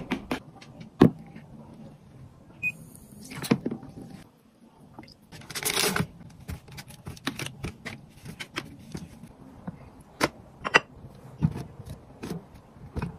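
Kitchen handling sounds: scattered light taps and clicks of containers and utensils, with a rustle of a paper liner being laid into a bamboo steamer about six seconds in.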